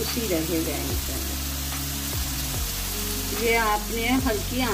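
Marinated chicken breast pieces sizzling as they fry in olive oil in a grill pan, with a steady hiss. A melody of background music plays over it, rising about three and a half seconds in.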